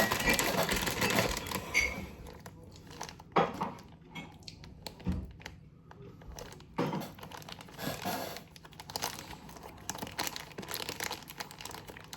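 Snack packaging crinkling and rustling as it is handled, in irregular bursts.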